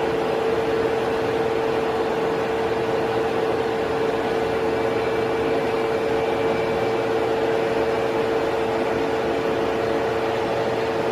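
Gear hobbing machine running steadily, cutting a gear: an even machine noise with a constant hum.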